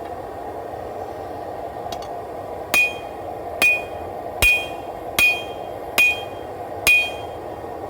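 Six hammer blows on steel, evenly spaced about 0.8 s apart, each with a short bright metallic ring, marking the measured point on the knife blade.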